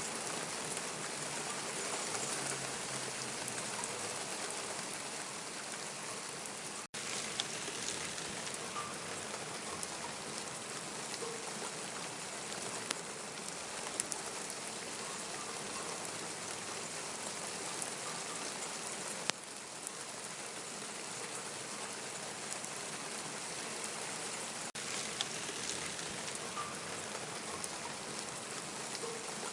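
Steady rain falling, an even hiss with a few sharper drops striking here and there. It cuts out for an instant about seven seconds in.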